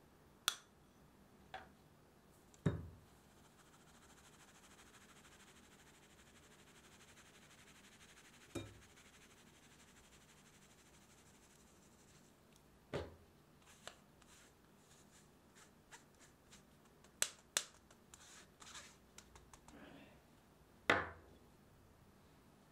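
Stainless mesh flour sieve being shaken and tapped over a glass mixing bowl: a faint steady rustle of flour sifting through the mesh, broken by about nine sharp, irregular taps of the sieve.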